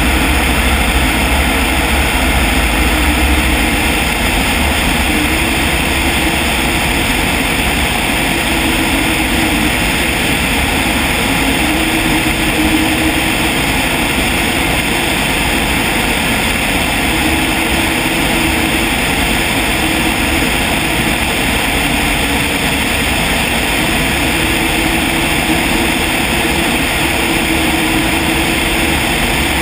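Light aircraft's air-cooled engine and propeller droning steadily in cruise flight, with wind rushing over an outside-mounted microphone.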